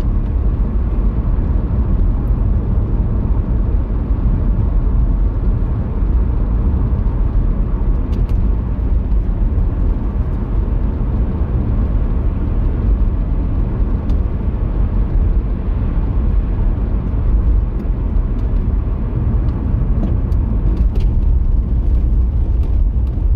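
Steady engine and tyre noise heard inside a car driving along a road, heaviest in the low end, with a few faint clicks.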